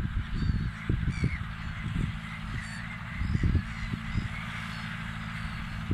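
A flock of gulls calling in short repeated cries over a steady low engine drone, with gusts of wind thumping on the microphone.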